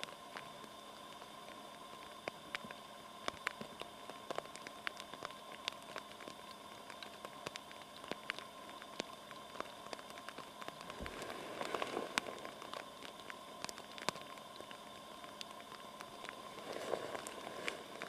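Black woodpecker pecking and chipping at wood: irregular sharp taps, a few each second, with two louder stretches of scraping and rustling, about twelve seconds in and near the end.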